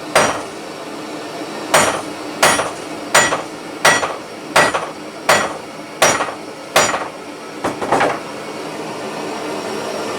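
A 48 oz ball-peen hammer striking heated rebar while forging a hook: about ten ringing metallic blows, roughly 0.7 s apart after a short pause following the first, the last few lighter and closer together. A steady hiss runs underneath.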